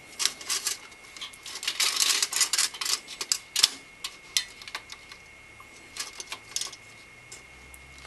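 Fan frame being slid between the two metal fin stacks of a Silverstone Heligon HE01 CPU cooler, rubbing and clicking against the fins: a quick run of clicks and scrapes for the first few seconds, then a few scattered clicks.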